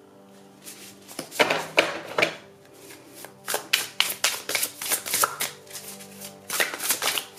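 Tarot cards being shuffled and drawn: quick card flicks and slaps in several irregular clusters, over soft background music with steady held notes.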